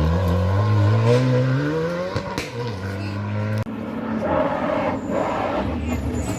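Rally car engine under hard acceleration, its pitch climbing through the revs with a quick gear change about two seconds in. After a sudden cut a little past halfway, a rougher, noisier engine sound continues.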